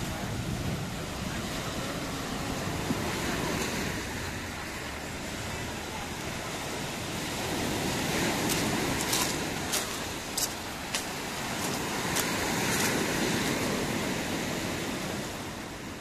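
Sea surf washing onto the beach, with wind on the microphone. The wash swells twice, and a few short sharp clicks come in between.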